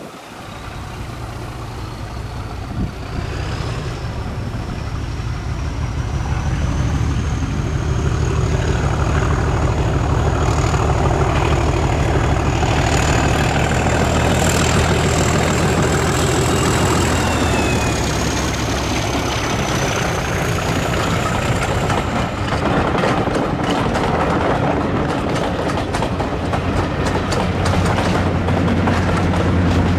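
BR Class 37 diesel locomotive (English Electric 12-cylinder engine) passing at the head of a passenger train. Its engine drone builds as it approaches, with a high turbocharger whistle that climbs and then drops in pitch as the loco goes by. The coaches' wheels then clatter over the rail joints, and a second diesel engine drone, the Class 55 Deltic on the rear, comes in near the end.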